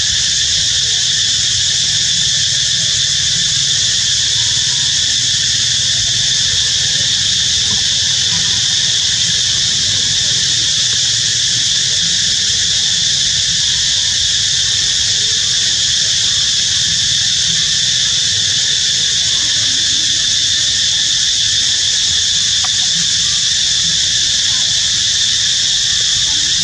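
Loud, steady high-pitched drone of an insect chorus, with a low rumble beneath.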